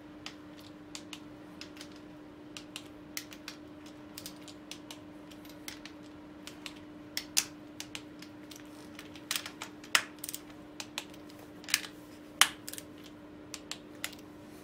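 Ratchet and torque wrench clicking irregularly as small engine cover bolts are tightened to 10 Nm, with a few louder clicks among many light ones. A steady low hum runs underneath.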